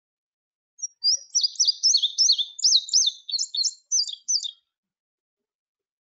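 Indigo bunting song: a run of quick, high, sweeping notes, mostly given in pairs, starting about a second in and stopping a little after halfway.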